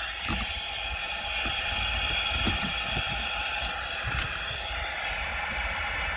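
A few light clicks of a stock antenna being fitted to a handheld CB walkie-talkie, over a steady hiss and low rumble.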